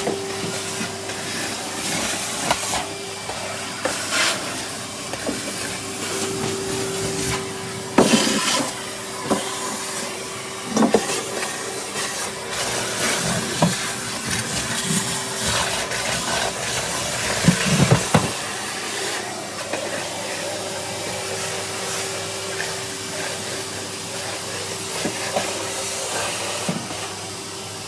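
Vacuum cleaner running steadily with a hissing rush and a steady hum, the nozzle knocking and scraping on the floor now and then, most sharply about eight seconds in and again near eighteen seconds. Its suction is weak, which the user puts down to a pork scratching stuck in the pipe.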